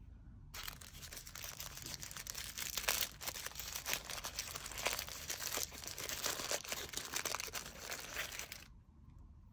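Paper wrapper of a wrapped sweet crinkling and rustling as it is handled and unwrapped by hand, a dense run of small crackles starting about half a second in and stopping near the end.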